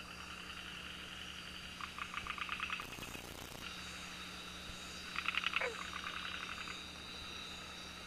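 Night rainforest ambience: a steady high insect drone, with two rapid pulsing calls, about two and five seconds in, and a short whistle falling steeply in pitch. A brief hiss of noise comes around three seconds in.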